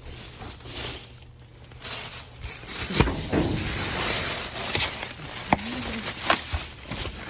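Plastic bags and foam packaging rustling and crinkling as bagged trash is rummaged through, with a few sharp knocks as items are shifted.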